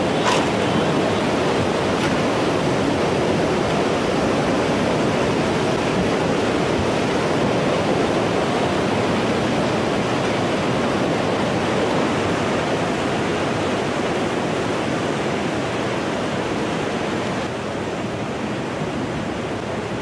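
Tsunami water rushing and churning over a shoreline wall: a loud, steady wash of water noise that drops a little near the end.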